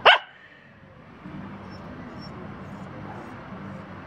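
Outdoor background with a steady low hum, opened by one short, loud rising chirp.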